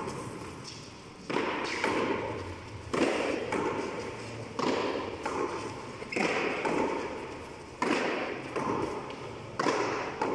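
Tennis ball struck by hand and slapping off the concrete front wall and floor in a frontón hand-ball rally. There is a sharp hit about every second and a half, each ringing on in the walled court's echo.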